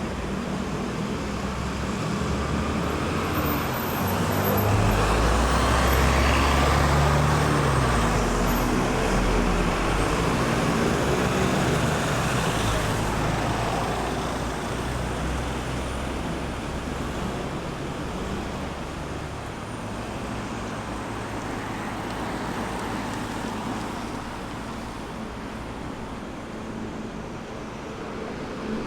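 Road traffic passing a roundabout: a steady wash of tyre and engine noise, loudest about five to ten seconds in as a heavy vehicle's deep engine rumble goes by, then gradually thinning out.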